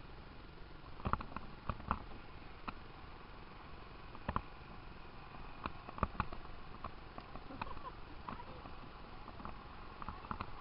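Irregular knocks and clunks of canoe paddles against canoe hulls and gunwales, over a faint steady background.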